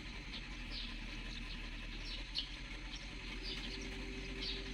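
A bird chirping over and over, short falling notes about two a second, over a low steady hum.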